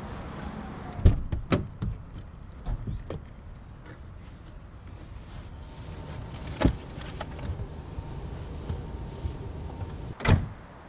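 Car doors and boot being handled: a series of sharp clunks and knocks, several close together about a second in, a loud one near the middle and another near the end, with quieter rummaging between.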